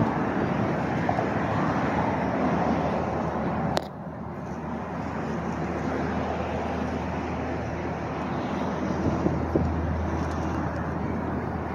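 Steady outdoor rushing noise with no clear source. A sharp click comes a little under four seconds in, and after it the noise is quieter. A low steady hum is added near the end.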